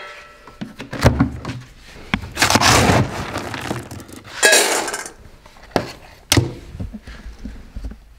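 Dry dog kibble is scooped from a plastic storage bin and poured, rattling, into a stainless steel bowl in two pours, followed by two sharp knocks.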